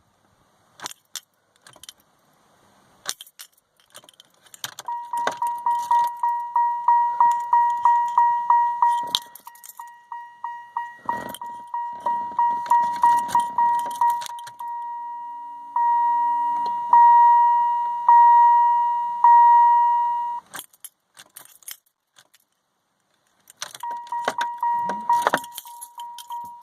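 1995 Pontiac Trans Am's dashboard warning chime dinging rapidly and repeatedly, about three dings a second, starting about five seconds in, stopping around twenty seconds and starting again near the end. Keys jangle and click before the chime starts.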